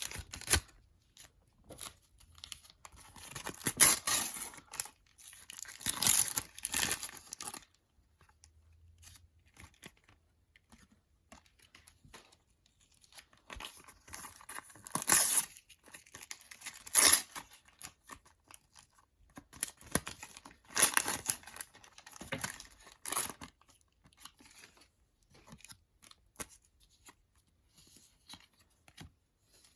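Panini NBA sticker packets being torn open one after another, the thin wrappers tearing and crinkling in irregular bursts with quieter stretches between.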